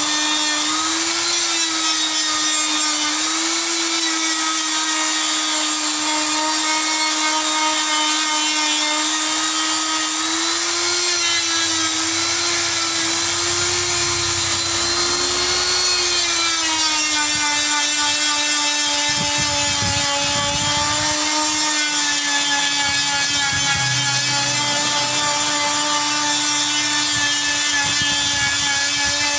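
Electric die grinder with a buffing head running steadily against the rubber of a truck inner tube, buffing the area around the puncture ready for vulcanizing. Its whine rises and dips slightly in pitch and settles a little lower from about halfway on.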